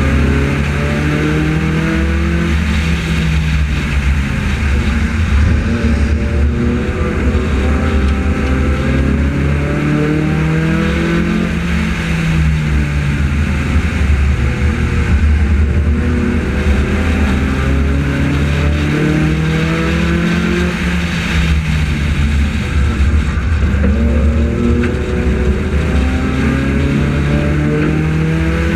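Engine of a front-wheel-drive Honda race car at race pace, its pitch climbing as it accelerates down each straight and falling as it lifts for the turns, four times, over a steady rushing noise of wind and tyres.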